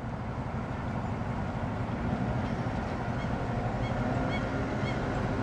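Low, steady rumble of city street traffic, a heavy vehicle's engine growing slowly louder as it approaches. A few faint, short high chirps come in from about three seconds in.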